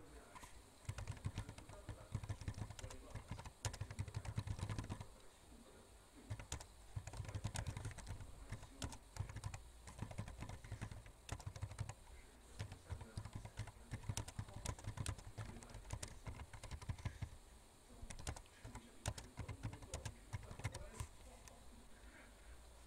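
Computer keyboard being typed on: runs of quick key clicks with short pauses between them.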